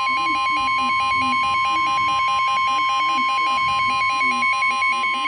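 Emergency weather alert tones: a steady high alarm tone, the NOAA Weather Radio warning tone announcing a tornado warning, sounding together with a rapidly pulsing electronic alert tone of about four beeps a second.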